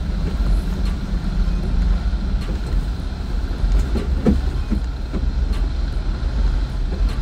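A Jeep driving slowly on an off-road trail: a steady low engine and drivetrain rumble, with a few faint clicks and knocks.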